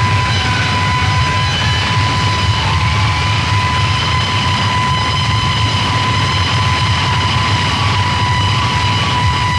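Harsh noise music: a loud, unbroken wall of distorted noise over a heavy low rumble, with a steady high whine and its overtones running through it.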